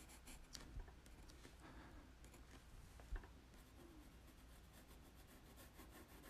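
Faint scratching of a pencil drawing lines on paper, close to near silence, with a soft low thump about three seconds in.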